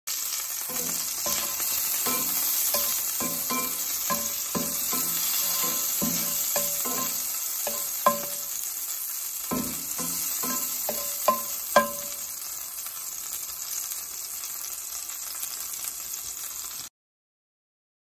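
Cicadas frying in olive oil in a cast iron skillet, a steady sizzle with a spatula repeatedly knocking and scraping against the pan. The sound cuts off abruptly near the end.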